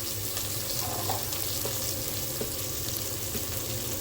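Sliced onions sizzling steadily as they fry in oil and ghee in a pressure pan.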